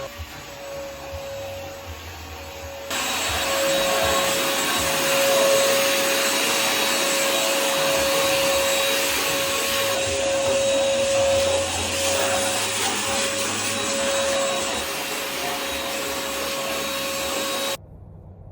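Vacuum cleaner running steadily with a motor whine. It gets louder about three seconds in and cuts off suddenly near the end.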